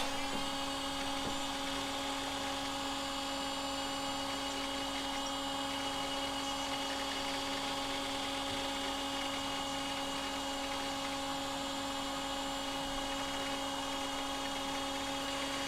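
Macintosh LC 630 running just after power-on: the steady whirring hum of its cooling fan and spinning disk drive, with a high whine that drops slightly and settles in the first half second.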